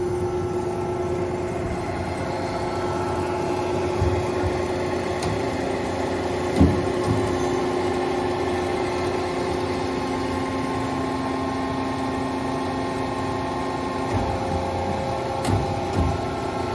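Hyd-Mech S-23A horizontal bandsaw running steadily as the head feeds down into the cut, its blade drive and hydraulics humming. A lower tone joins about six and a half seconds in, with a few brief knocks, the loudest at that same moment.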